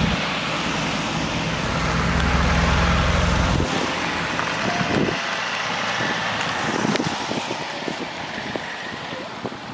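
Cars passing slowly one after another on wet asphalt, engine rumble and tyre noise, fading away over the last few seconds, with some wind on the microphone.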